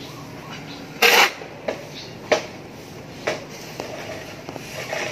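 A metal shovel digging into and turning a pile of damp composting sawdust. A scraping scoop about a second in is the loudest, followed by several shorter scuffs.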